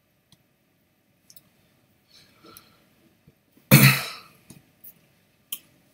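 A man coughs once, a short, loud burst a little under four seconds in, with a few faint clicks before and after it.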